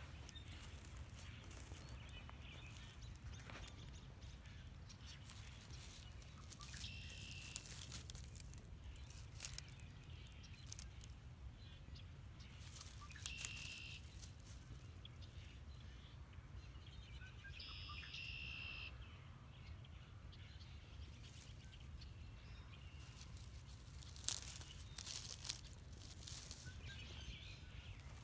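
Footsteps crunching and rustling through dry grass and reed stalks, with a steady low rumble underneath. A bird chirps a few times, the longest call a little past halfway. The loudest crackles come near the end.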